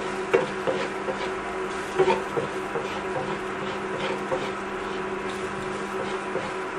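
A steady electrical hum from running kitchen appliances. Under it, food is frying in a pan with a faint hiss, and a few light knocks come as it is stirred, the loudest about two seconds in.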